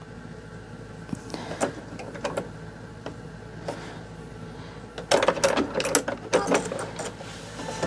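Bernina sewing machine stitching fabric, its motor humming steadily. About five seconds in it gets louder and busier, with rapid needle clicking.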